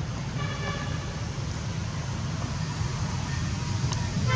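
Steady low rumble of road traffic, with a short vehicle horn toot about half a second in and another right at the end.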